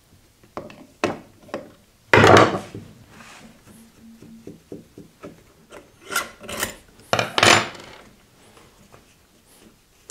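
A small electric motor and metal hand tools handled on a wooden workbench: a few light clicks, a loud scrape about two seconds in, scattered small knocks, then more scraping rubs about six to seven and a half seconds in as the motor housing is worked loose for disassembly.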